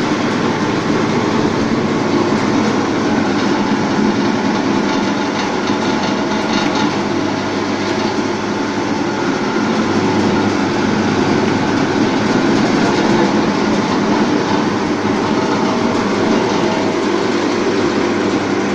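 A machine tool running steadily, a loud, even mechanical rattle and hum with no pauses.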